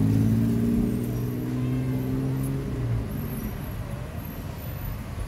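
A motor vehicle's engine running close by as it passes, its note falling slightly and fading out about three seconds in. It leaves a steady low street-traffic rumble.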